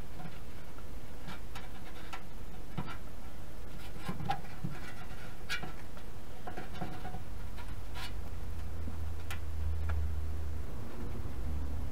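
Scattered small clicks and scrapes of hands working a fire-resistant patch onto a rusted exhaust pipe under the car. A low hum comes in about two-thirds of the way through.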